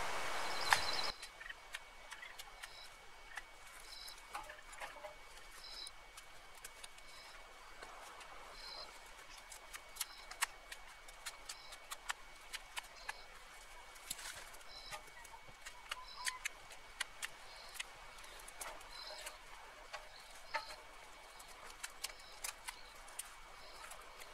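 Dry brush branches snapping and crackling in irregular sharp clicks as they are pulled from a pile and gathered by hand. A bird repeats a short chirp about once a second. A loud steady noise cuts off abruptly about a second in.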